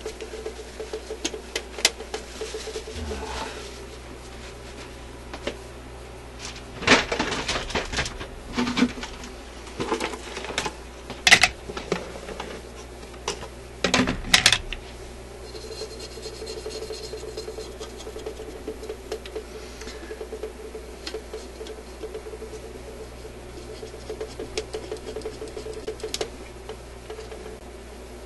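Parts of an old suitcase record player's changer mechanism being handled and worked while it is lubricated: scattered clicks and metal clatter, busiest in the middle, over a steady low hum.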